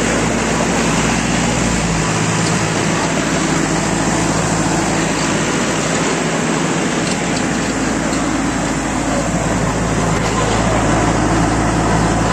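Tractor's diesel engine running steadily, a constant low drone with no change in revs.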